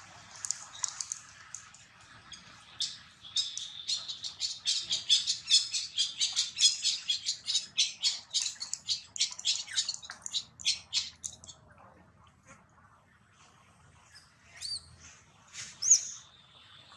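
A baby monkey giving rapid high-pitched chirping squeaks, about four or five a second, for about ten seconds, then two louder squeals near the end.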